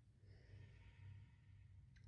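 Near silence: room tone with a faint, soft breath.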